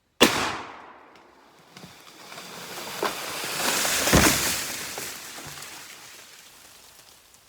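A single Remington shotgun blast, then a swelling rush of crackling and swishing that peaks in a heavy crash about four seconds in and fades away: the shot oak tree coming down through its branches.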